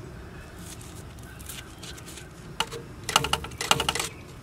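A brief cluster of quick light clicks and scrapes as a gloved hand handles a rusty rear brake caliper and bracket, starting a little past halfway and lasting about a second and a half.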